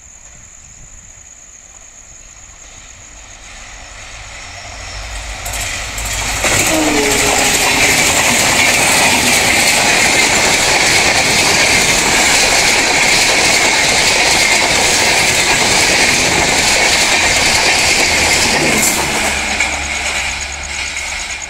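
Passenger express hauled by a WDP4D diesel-electric locomotive passing at speed. The rumble builds over the first six seconds, and the locomotive goes by about six and a half seconds in with a brief falling tone. A loud, steady rush of the coaches' wheels running over the rails follows, fading near the end as the train moves away.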